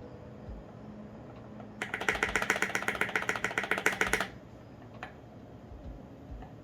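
Custom mechanical keyboard in an acrylic Tofu65 case, with lubed and filmed Alpaca V2 linear switches and SA-profile ABS keycaps, typed on in a fast run of keystrokes lasting about two and a half seconds. One lone keystroke follows a little later.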